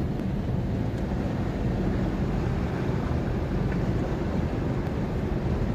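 Steady rumble and hiss of heavy rain with a vehicle running in it.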